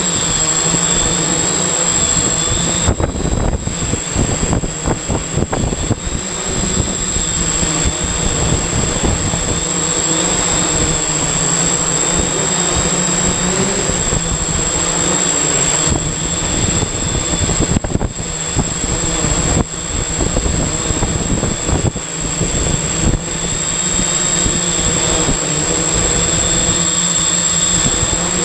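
Octocopter's electric motors and propellers whirring steadily, heard from the camera on its own frame, with a constant high whine over an uneven low rumble.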